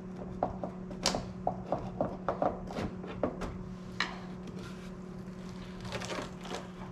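Clicks, taps and short scrapes of hand tools and loose metal parts being worked during the heater box removal, a dozen or so small knocks at uneven spacing, over a steady low hum.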